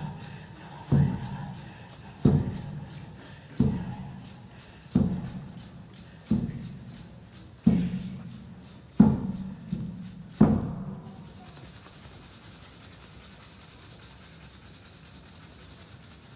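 Percussion music: a deep drum struck slowly and evenly, about once every 1.3 seconds, under a quick steady shaken rattle. About eleven seconds in the drum stops and the rattle turns into a continuous fast shaking.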